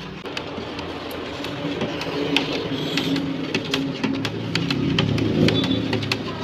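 Homemade dishwashing liquid being stirred by hand round and round in a plastic basin: the liquid swishes and sloshes, with scattered small clicks.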